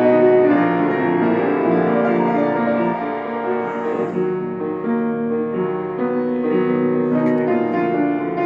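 Solo piano music: slow, held chords that change every second or so.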